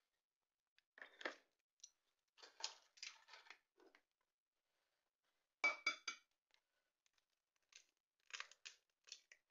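Faint, scattered clicks and light clinks from handling eggs, eggshell and utensils around plastic and ceramic bowls while eggs are separated. The sharpest is a small ringing clink about halfway through.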